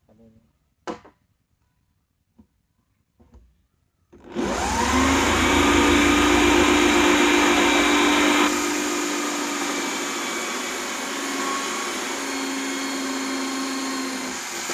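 A few faint knocks, then about four seconds in a corded electric drill spins up and runs steadily for about ten seconds, boring a one-inch hole through the wall of a black plastic water tank.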